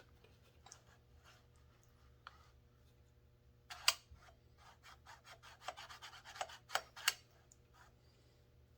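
Faint clicks and scrapes of a chainsaw being handled on a workbench, with a quick run of light ticks in the middle.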